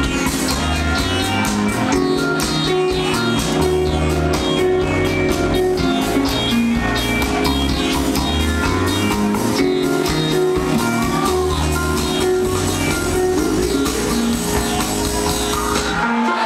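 Live band playing at full volume: electric guitar, bass, keyboards and drums over a steady beat. The bass and drums drop out near the end.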